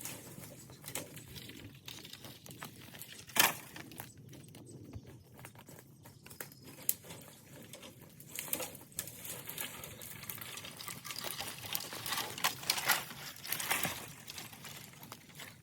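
Irregular crackling and rustling, like movement through dry leaves and brush, with one sharp snap about three seconds in. It grows busier in the second half.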